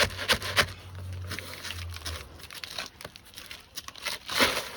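Asphalt roof shingles scraping and crinkling against each other in a series of short strokes with small clicks, as a shingle is worked in under the course above; the loudest strokes come at the very start and near the end.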